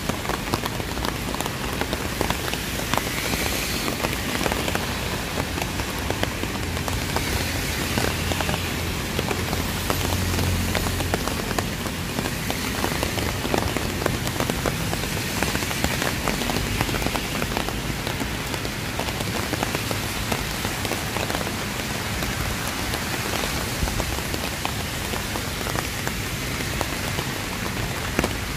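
Steady, heavy rain falling and splashing on hard surfaces, with a dense patter of individual drop taps throughout.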